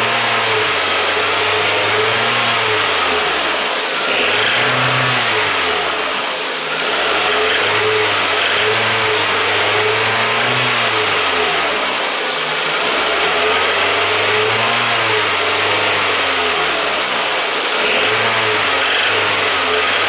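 Toyota VVT-i four-cylinder engine revved repeatedly by hand at the throttle, rising and falling in pitch every two to three seconds. Under the revs it makes a small hammering knock, which the owner estimates comes from worn connecting rod bearings.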